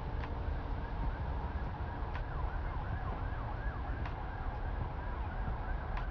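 Wind buffeting the microphone, a steady low rumble, with faint short falling whistles repeating several times a second in the background and a few light ticks.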